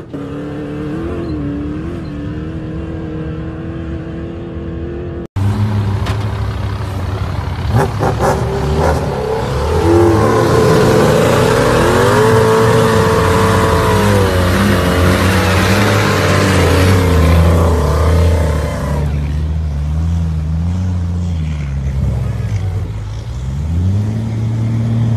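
Rally vehicle engines in desert sand: first a rally car's engine running at fairly steady revs as it passes, then, after a sudden cut about five seconds in, engines revving up and down hard under load, with a loud rushing noise through the middle, while a rally truck tows a red rally pickup stuck in a sand dune.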